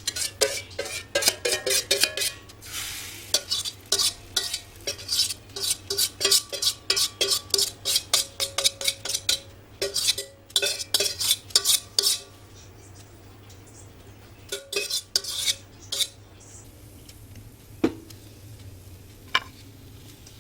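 A utensil stirring briskly in a bowl, clinking quickly and unevenly against its side. It stops about 12 seconds in, comes back in a short burst a few seconds later, and ends with a couple of single taps.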